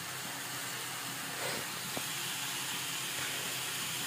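Masala with boiled eggs and potatoes sizzling steadily as it fries in an aluminium kadai, the spices being sautéed down before water is added. There is a faint click about two seconds in.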